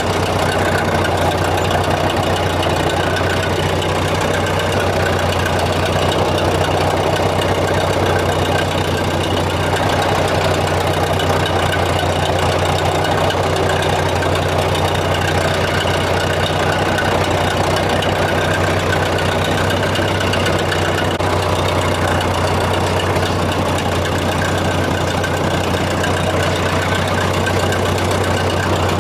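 An engine running steadily at an even speed, a constant low hum that does not change.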